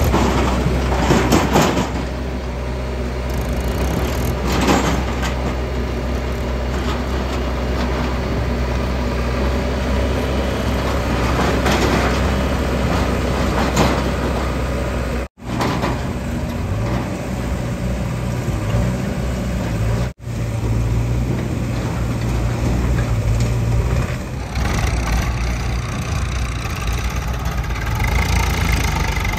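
Diesel tractor engines running as loaded trolleys are pulled away, alongside a JCB 3DX backhoe loader's engine at work. The sound drops out abruptly for an instant twice.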